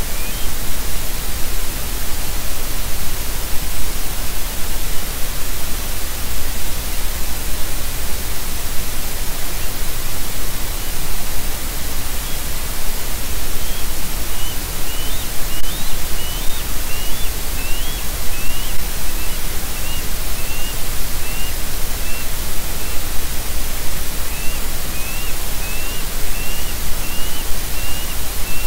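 Steady loud hiss from the nest camera's microphone. From about halfway through, a bird gives a run of short, high chirps that rise at the end, about one or two a second.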